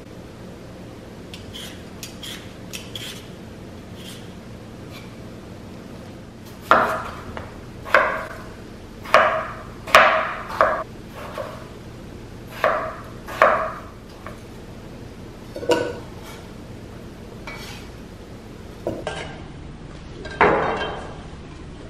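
Chef's knife cutting peeled potatoes on a bamboo cutting board: a few faint clicks at first, then about ten sharp knocks of the blade hitting the wood, irregularly spaced, and a longer scrape of the knife across the board near the end.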